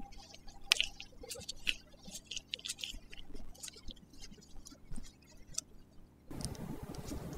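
Small metal clicks and scrapes of hand tools on a Tektro hydraulic disc brake caliper as its retention bolt is unscrewed and drawn out. About six seconds in, a steady hiss comes in abruptly.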